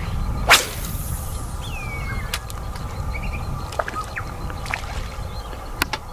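Wind rumbling on the microphone, with one loud sharp swish about half a second in and scattered light clicks. A short falling whistle sounds about two seconds in.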